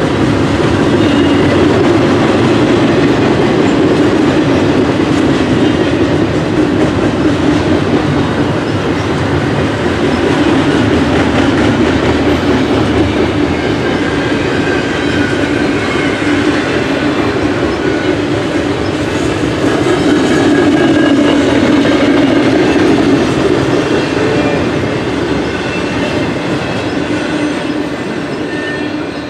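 Double-stack intermodal container train's well cars rolling past, a loud steady rumble of steel wheels on rail with occasional faint thin squeals. The sound eases off over the last few seconds as the end of the train passes.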